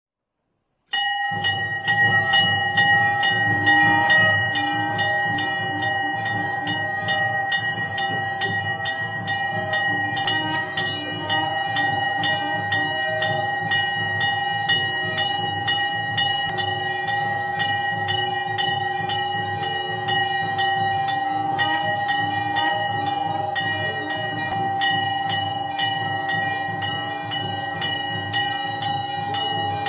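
Temple bells rung fast and without a break during aarti, a sustained metallic ringing struck several times a second over a low steady rumble. It starts about a second in.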